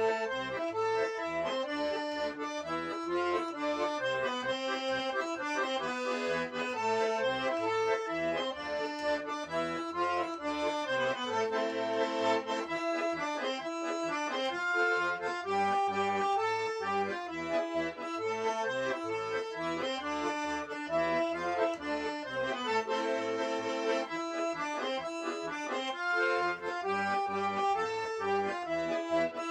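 Russian garmon (button accordion) in C major playing a folk-song melody, with a steady rhythmic bass-and-chord accompaniment beneath it.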